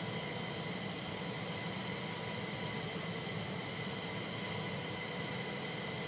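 Steady machine noise on an aircraft flight line: a continuous rushing hiss with several high, steady whining tones over a low rumble, like powered ground equipment or a turbine running.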